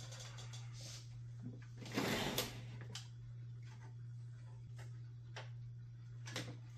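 Cables and plastic connectors being handled while a fan power cable is routed and plugged into a computer's power supply connector: scattered small clicks and rustles, with a louder scraping rustle about two seconds in, over a steady low hum.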